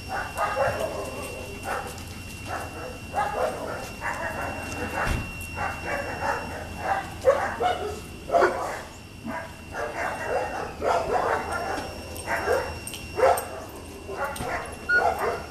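Dogs barking over and over, a fast run of short barks roughly every half second to second.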